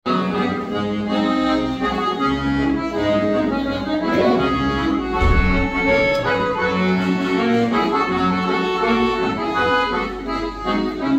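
Piano accordion playing the instrumental introduction to a church song: a melody of held notes over sustained bass notes.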